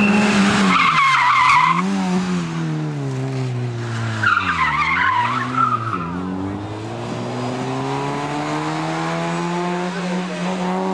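Fiat Seicento Sporting Abarth rally car's small four-cylinder engine revving hard, its pitch rising and falling with the throttle. Tyres squeal in the first two seconds and again midway, where the revs dip sharply and then climb steadily as the car accelerates away.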